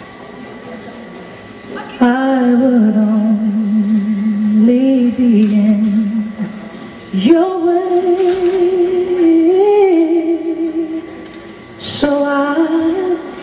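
Slow song with a woman singing long, held notes with a slight waver, in three phrases after a quieter opening of about two seconds.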